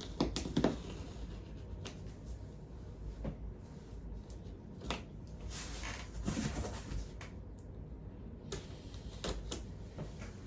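A shipping box being opened and handled by hand: scattered knocks and clicks, the loudest about half a second in, with a longer scraping rustle around six seconds in.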